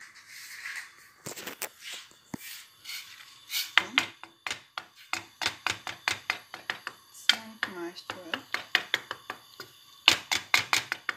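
Wooden spatula knocking and scraping against the side of a stainless steel pot while grated potato is stirred in hot water: a quick, uneven run of sharp clicks, several a second.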